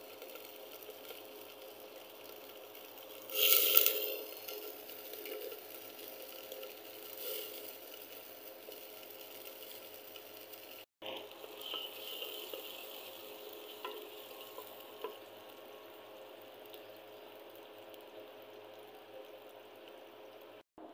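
Chopped garlic sizzling in hot oil in a clay pot, with a sudden loud burst of sizzling about three and a half seconds in as it goes into the oil, then a steady, softer sizzle with light crackles.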